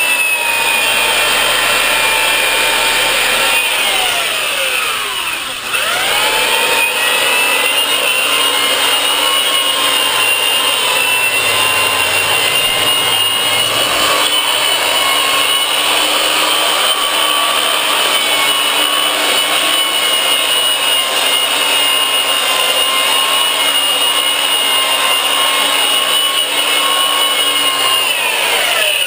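Milwaukee 5540 sander/polisher running with a foam power pad and sandpaper, sanding a fiberglass surfboard with a steady high whine. About five seconds in its pitch sags and climbs back up, and near the end the motor starts to wind down.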